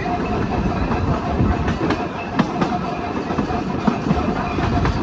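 1926 St. Louis Car Company double-truck Birney streetcar running along the track: a steady rumble with a few sharp clicks of the wheels over rail joints.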